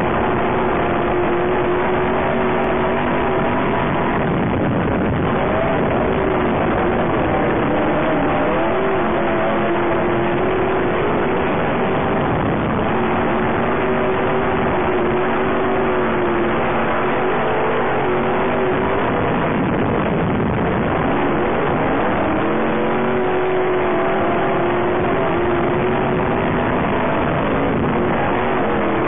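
Dirt-track super truck engines racing at full throttle, the engine note rising and falling again and again as the trucks go through the corners, over a constant loud roar.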